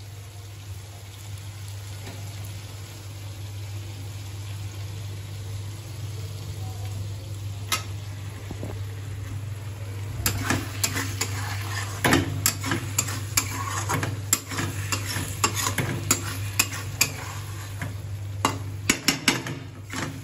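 Chicken curry sizzling in a steel kadai as its gravy is cooked down, over a steady low hum. A flat steel spatula scrapes and clacks against the pan in quick strokes from about halfway through as the curry is stirred.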